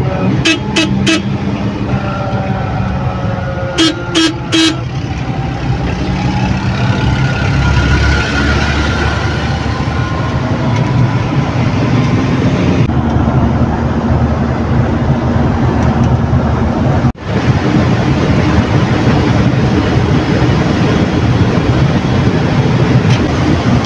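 Vehicle horn tooted in quick short bursts, about four right at the start and three more about four seconds in, over steady engine and road noise heard from inside a moving van.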